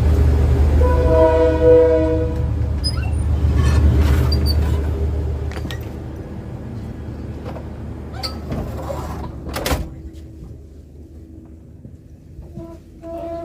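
Train horn sounds once for about two seconds, starting about a second in, over the low rumble of the diesel-powered train standing at the station. Scattered clicks and knocks follow, with one sharp knock near ten seconds, as the rumble fades.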